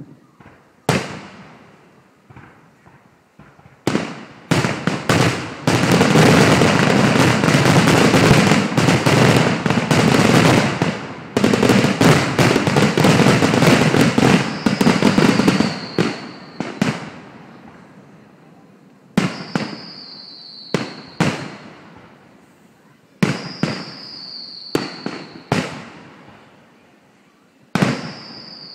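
Fireworks display: aerial shells bursting with sharp bangs, building to a dense barrage of rapid bangs and crackling through the middle. After the barrage come spaced single bursts, several with a short high whistle that falls slightly in pitch.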